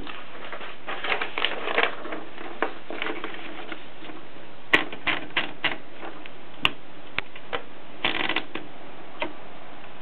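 Olympia SM3 manual typewriter being handled while paper is fed into the carriage: a quick run of small mechanical clicks and rattles, then single sharp clicks every half second or so.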